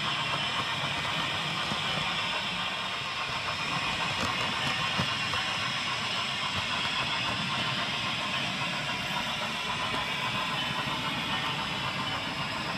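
HO-scale model train running along the track, a steady rolling hiss with a low hum underneath.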